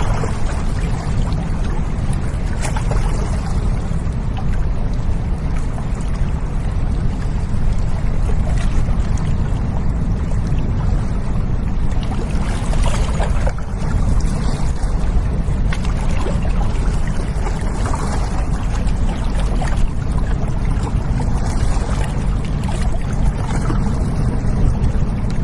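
A container ship's engine running with a steady low drone as it passes on the river, with water washing along the bank.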